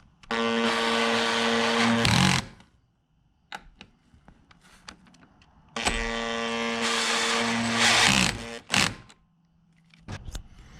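Power drill driving the awning's mounting bolts into the brackets on the roof-rack crossbars: two runs of about two seconds each, the motor's steady whine dropping in pitch as the trigger is released, with a few small clicks of handling between them.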